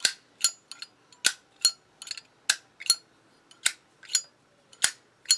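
Zippo lighter lid being snapped open and shut repeatedly, five metallic click-and-clink pairs, testing a freshly riveted cam and new cam spring.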